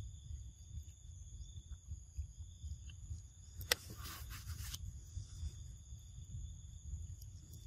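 Forest insects buzzing steadily at several constant high pitches over a low rumble. About halfway through, a sharp click is followed by about a second of rustling noise.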